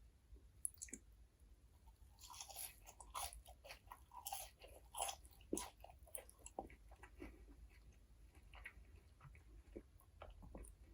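Close-miked eating of McDonald's food: a series of crunchy bites and chewing. It is densest for a few seconds about two seconds in, then thins to slower, softer chewing.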